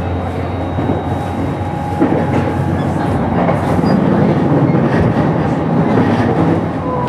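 Riding inside a JR East E233-series electric train's motor car while it runs: steady wheel-and-rail rumble with thin steady tones from the VVVF inverter and traction motors, growing heavier about two seconds in.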